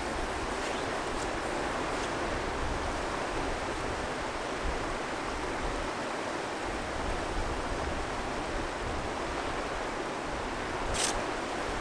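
Steady rush of the Rio Grande's current flowing past, with a brief high hiss near the end.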